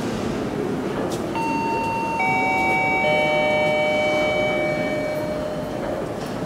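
A three-note descending chime: three bell-like electronic tones struck about a second apart, each lower than the last, each ringing on and overlapping the next before fading. A steady low rumble runs underneath.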